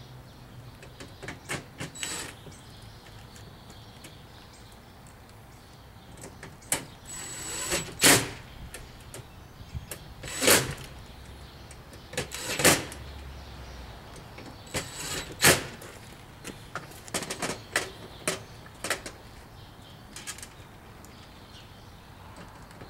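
DeWalt 20V cordless drill driving screws into a gas grill's base in a dozen or so short bursts, each a brief motor whine, the loudest between about eight and sixteen seconds in.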